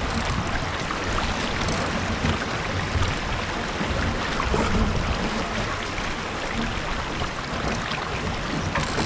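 Steady wash of water rushing along a sailboat's hull under sail, with wind rumbling on the microphone.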